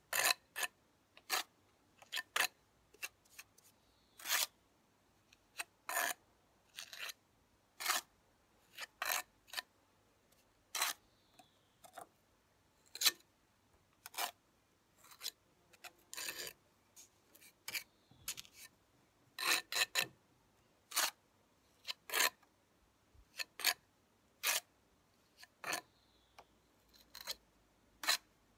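Steel trowel scraping mortar off a hawk and working it into the brick joints. The scrapes are short and sharp and come at irregular intervals, about one or two a second.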